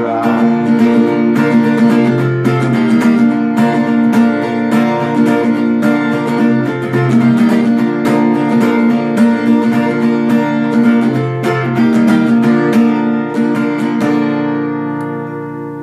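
Acoustic guitar strummed in a steady rhythm, an instrumental outro with no singing, ending on a final chord that rings out and fades over the last couple of seconds.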